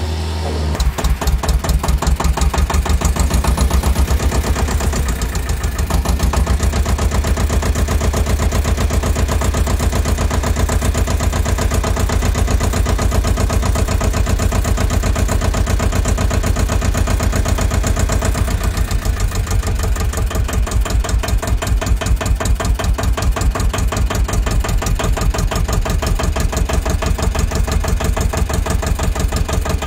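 Engine idling with a fast, even chugging rhythm.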